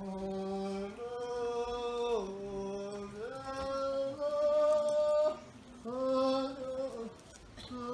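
A man's voice chanting a slow melody in long held notes that step up and down in pitch, breaking off briefly about five seconds in and again near the end.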